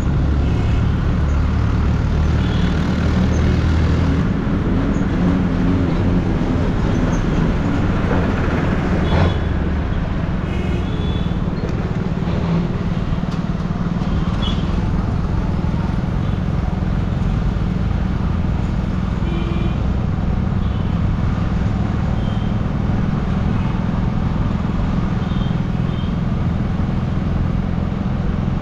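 City road traffic heard from a motorcycle rider's helmet camera: a steady engine and traffic rumble, with several short high horn beeps from surrounding vehicles.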